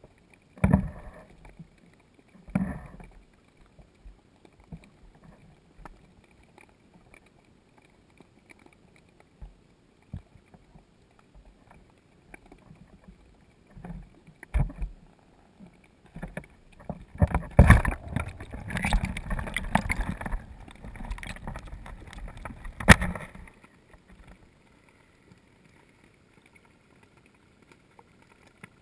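Muffled knocks and handling noise from a camera submerged underwater: two sharp knocks in the first few seconds, scattered light clicks, then a stretch of sloshing and thumping past the middle that ends in one sharp knock. A faint steady high tone runs underneath.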